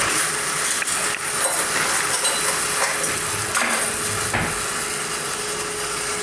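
Water boiling hard in a cezve on the stove, a steady bubbling hiss, with a few light knocks of metal.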